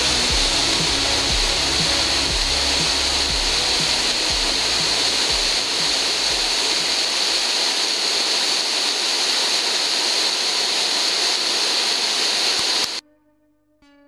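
Steady rushing of a river's cascades and waterfall, a dense hiss of falling water, with low uneven rumbling bumps through the first half. It cuts off abruptly about a second before the end.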